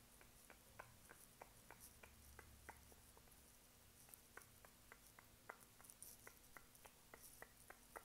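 Faint, soft ticks, about three or four a second, from a makeup brush being handled and swept close to the microphone, over quiet room tone.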